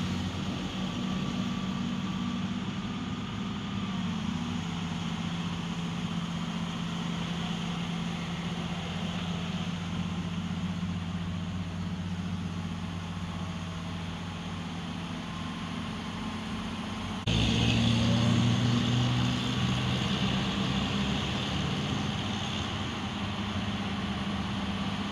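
Heavy diesel engine of an excavator or truck running steadily, then stepping up suddenly in loudness and pitch about two-thirds of the way through.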